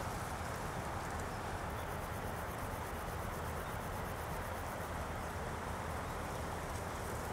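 Steady outdoor ambient noise: an even hiss with a low rumble underneath, unchanging in level. About two to three seconds in, a faint, fast, high ticking sits over it.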